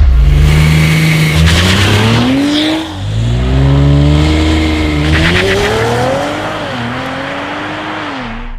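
Audi RS5 Sportback's 2.9-litre twin-turbo V6 accelerating hard through the gears, its pitch climbing and then dropping back at each upshift, several times over.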